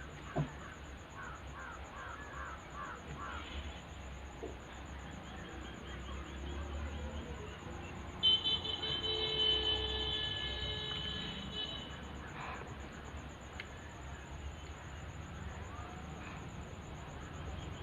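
A vehicle horn sounds one long held note for about three and a half seconds near the middle, over a faint background. About a second in there is a quick series of bird chirps.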